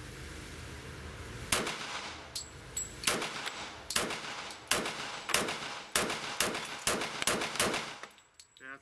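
A string of .45 ACP pistol shots from a Heckler & Koch pistol, starting about a second and a half in: around a dozen shots at roughly two a second, each a sharp report in a reverberant indoor range.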